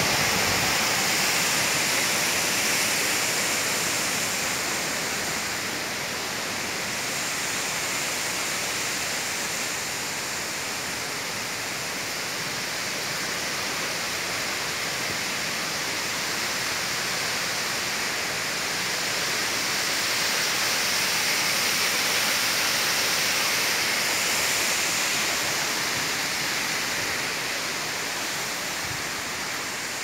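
Waterfall pouring down a rock face: a steady rush of falling water that swells and fades a little in level.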